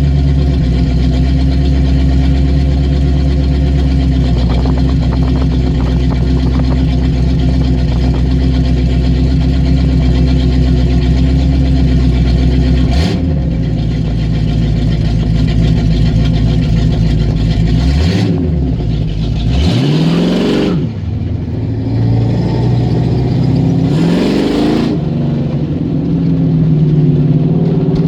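Car engine idling steadily through its exhaust, blipped about halfway through, then revved three more times in the second half, each rev rising and falling back to idle.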